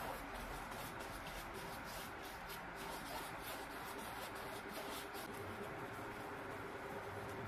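Flat paintbrush swept back and forth over a stretched canvas, spreading wet white acrylic: a quick run of short brushing strokes that thin out about five and a half seconds in, over a faint steady hum.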